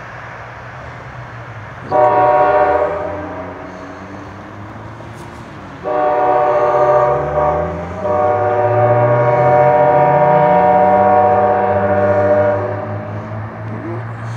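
EMD GP38-2 diesel locomotive running light and sounding its air horn: one short blast, then two long blasts, the last the longest. Under the horn the locomotive's diesel engine rumbles, its note rising as the horn blows.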